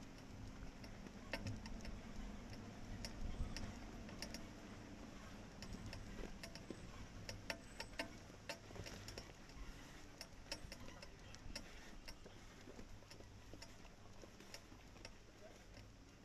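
Off-road 4x4 moving slowly on a rocky mountain trail, heard faintly as a low rumble with scattered, irregular clicks and ticks.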